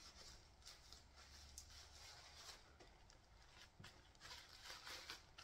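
Near silence with faint, scattered soft rustles and small ticks: a doll's coat being handled and worked onto a Barbie doll.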